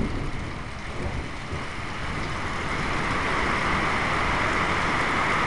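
Heavy rain falling, with an uneven low rumble underneath. The rain grows steadily louder from about two seconds in.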